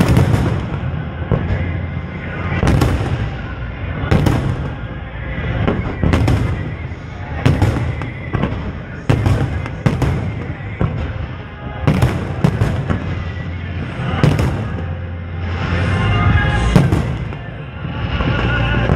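Aerial fireworks shells bursting in a rapid series of bangs, roughly one a second, with music playing underneath that comes through more clearly near the end.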